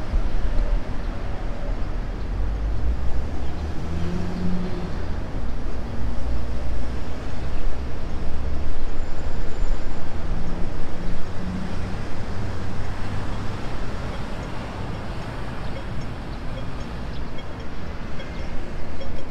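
Steady city street ambience with road traffic running, louder for a few seconds in the middle as vehicles pass.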